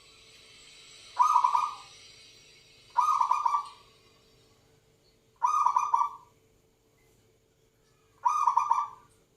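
Zebra dove (perkutut) cooing: four short, stuttering coos, each about half a second long and a few seconds apart.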